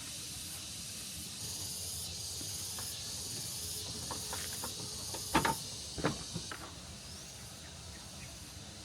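Steady high-pitched chorus of insects, with a couple of sharp knocks about halfway through.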